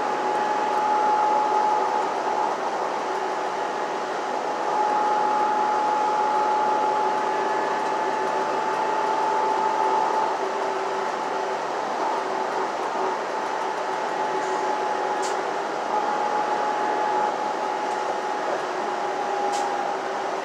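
Inside a city transit bus under way: steady engine and road noise with a steady high whine running through it, swelling a little in loudness now and then.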